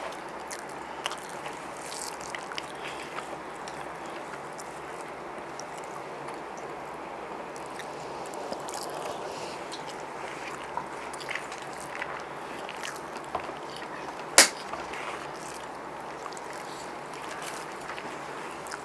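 Eating by hand off banana leaves: small scattered clicks and rustles of fingers working rice on the leaves, along with chewing, over a steady hiss. One sharp click stands out about fourteen seconds in.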